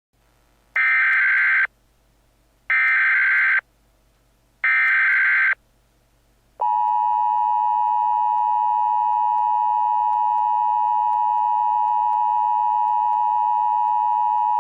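Emergency Alert System SAME header: three short, identical bursts of warbling data tones about two seconds apart. About a second later the EAS attention signal follows, a steady two-tone alarm held for about eight seconds and then cut off, announcing an emergency alert message.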